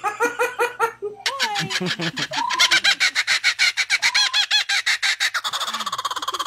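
A quick run of short hiccup-like sounds in the first second. Then a laughing kookaburra gives its laughing call, a long rapid chatter of repeated notes rising and falling, with a woman laughing along.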